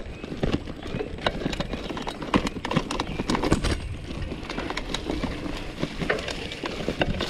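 Polygon Bend R2 gravel bike rattling and clattering over a bumpy dirt singletrack: irregular knocks from the bike's parts and tyre rumble on the rough ground.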